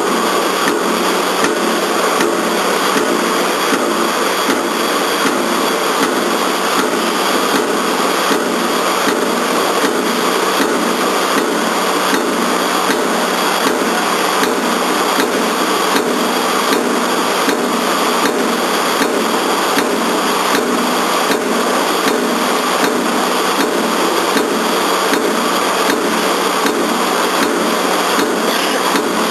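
Single-station CNC punching press, a mechanical power press, punching holes in steel plate at a steady rhythm of a little under two strokes a second, over the machine's constant hum.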